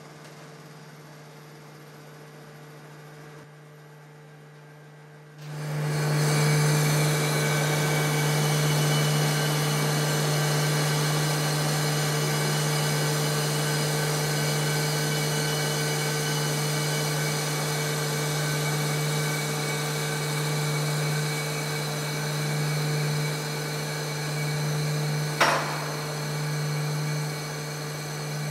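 Universal testing machine loading an M48×3 bolt in tension: its drive starts with a sudden jump in level about a fifth of the way in, then runs with a steady hum while the load climbs toward about 1500 kN. A single sharp crack sounds near the end.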